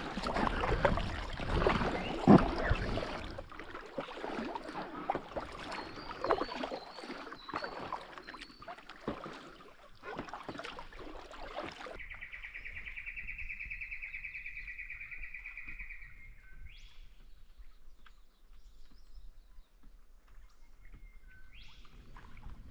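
Kayak paddle strokes splashing and knocking against the packraft, loudest in the first three seconds. About halfway through, a bird gives a steady pulsing trill for about four seconds, then short rising chirps.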